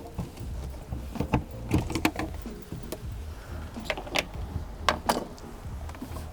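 Irregular sharp clicks and knocks, about eight in all, from hand and tool work on a car tail light's 8 mm mounting nuts and its housing.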